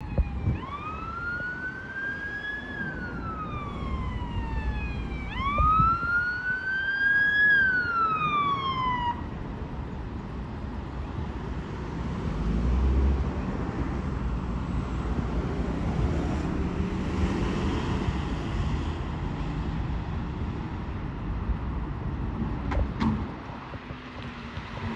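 Fire engine siren wailing in two slow rise-and-fall cycles of about four seconds each, then switched off. Road traffic and engine noise follow as the fire truck approaches.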